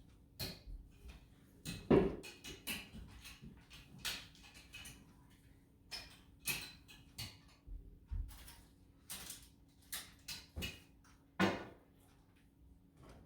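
A wet mop pushed and slapped across a hard floor: irregular swishing strokes and knocks, the loudest about two seconds in and near the end, over a faint steady hum.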